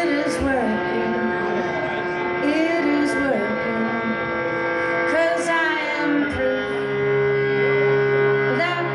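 Live fiddle playing: bowed notes that slide up and down over steadily held notes, with a lower sustained tone entering about two-thirds of the way through.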